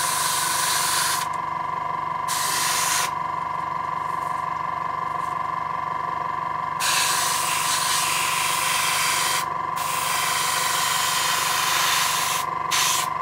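Airbrush hissing in stretches of a second to a few seconds as the trigger is pulled and released, spraying paint. Beneath it a small air compressor runs with a steady hum and fast even pulsing.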